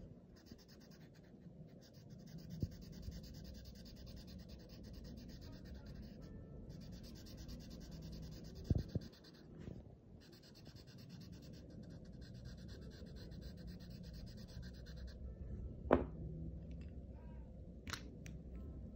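Black marker scratching across paper in long runs of quick, repeated strokes, stopping briefly twice. A few knocks land on top, the loudest about sixteen seconds in.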